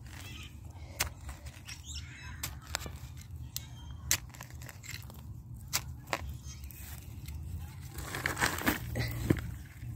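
Hand trowel digging into soil and wood-chip mulch: scattered short scrapes, crunches and clicks, thickening into a burst of scraping near the end, over a steady low rumble.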